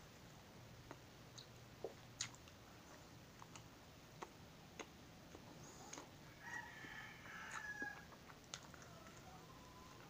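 Soft chewing and mouth clicks of someone eating a pancake, with a rooster crowing once in the background about six and a half seconds in, for under two seconds.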